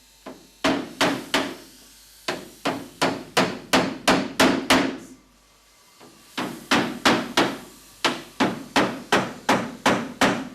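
Hammer driving nails through timber cladding into a house frame. It comes as two runs of quick, even blows, about three a second, with a pause of about a second between them.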